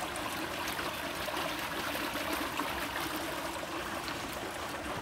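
Steady trickling and splashing of water running into an above-ground swimming pool, with a faint steady hum underneath.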